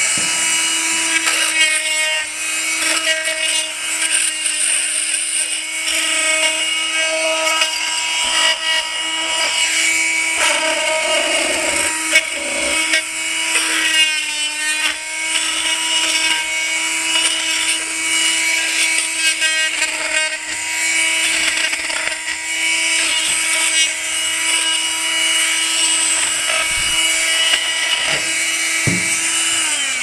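Harbor Freight Chicago oscillating multi-tool running with a steady high buzz, its vibrating scraper blade rasping old wax-moth-damaged comb off a wooden beehive frame. Right at the end the buzz drops in pitch as the tool is switched off and winds down.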